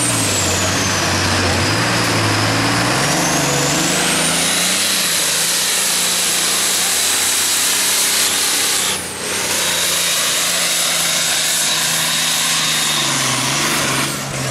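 Diesel engine of a Ford pulling tractor running hard under load as it drags a weight sled, its pitch sagging and climbing again. A high whistle sweeps up and down above it, and the sound dips briefly about two thirds of the way through.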